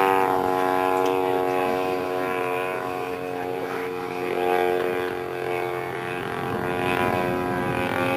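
Gasoline engine of a 1/3-scale Aeronca Champ RC model plane running at a steady speed, its propeller drone swelling and easing a little in loudness.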